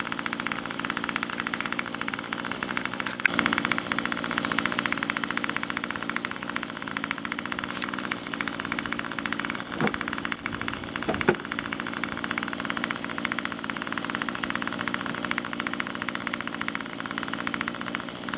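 Steady, dense drone of a honey bee swarm buzzing, with two single bees flying close past about ten and eleven seconds in. A couple of brief clicks are heard early on.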